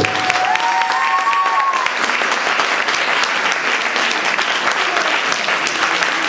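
Audience applauding steadily, a dense patter of many hands clapping for dancers taking their bow. A few held tones sound in the first two seconds.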